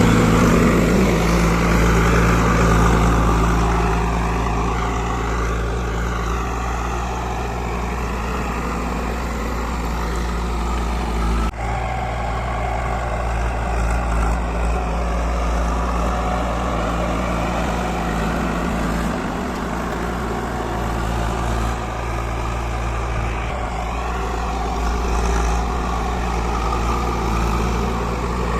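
Heavy diesel construction machinery running steadily, an engine holding a constant low note under broad mechanical noise, with a brief break a little over a third of the way in.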